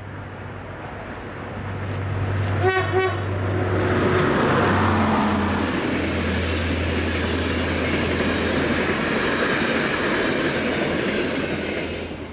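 Adtranz DE2000 diesel-electric locomotive approaching with its engine running. It gives two short horn blasts about three seconds in. It then hauls an InterCity train past, and the rush of coaches on the rails stays loud until it falls away near the end.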